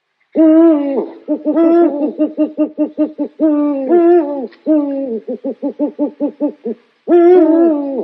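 Owl calls: a long wavering hoot that drops at its end, followed by a rapid run of short hoots at about five a second. The pattern repeats, and a third long hoot starts near the end.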